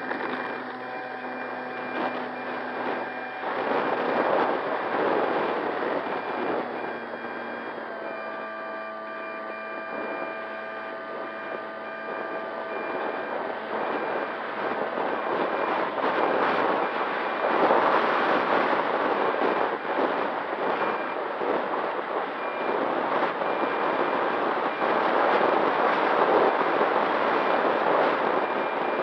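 Electric motor and propeller of an E-flite Apprentice STS model plane running under power, heard from a camera on board: a steady whine of several pitched tones that shift in pitch about eight seconds in. Wind rushing over the microphone grows louder from about halfway and takes over as the loudest sound.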